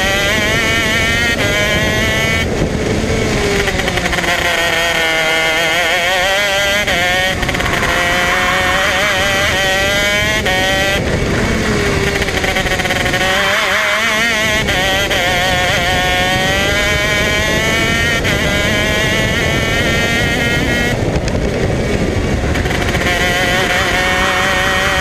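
Modena Engines 125 cc KZ two-stroke kart engine at racing speed, heard from on board. Its pitch climbs as it accelerates through the gears and falls away when it backs off, with deeper dips a few seconds in, about halfway and near the end.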